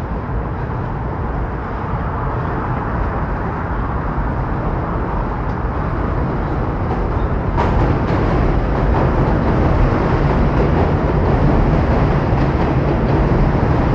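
Rumble of a train running across a steel truss bridge, growing louder about halfway through, with one sharp clack just before the rise.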